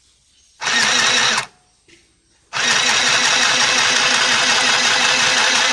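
Mini electric sewing machine stitching: it runs in a short burst of under a second, stops, then starts again about two and a half seconds in and runs steadily with a fast, even stitching beat.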